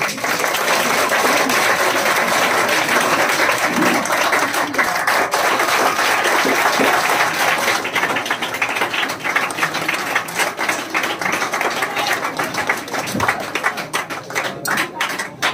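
A roomful of students applauding: dense clapping that thins out into scattered separate claps over the second half.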